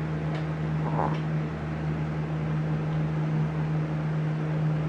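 A steady low hum, like a fan or appliance motor, runs unchanged throughout. About a second in comes a faint, short puff of breath from a small dog, the breathing that sounds like farting.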